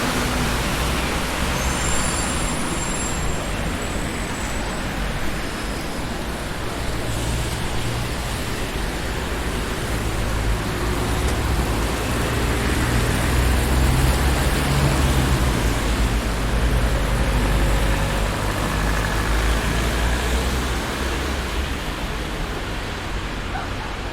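Busy city street traffic: a steady wash of passing cars and engines. A low engine rumble swells through the middle, and brief high squeaks sound a couple of seconds in.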